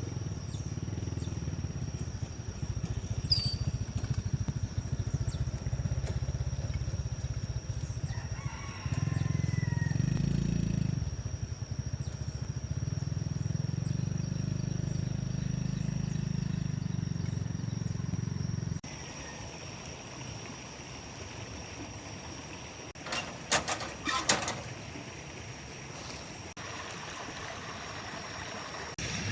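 A motor running steadily with a low hum, which cuts off abruptly about two-thirds of the way through. A few sharp knocks follow near the end.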